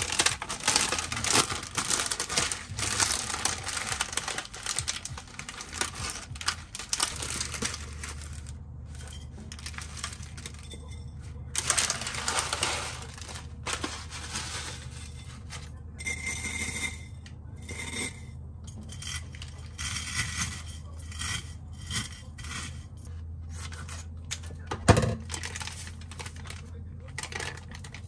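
Kitchen handling sounds: dense rustling and clicking for the first several seconds, then scattered metallic clinks and knocks, one sharp knock near the end, over a low steady hum that comes in about seven seconds in.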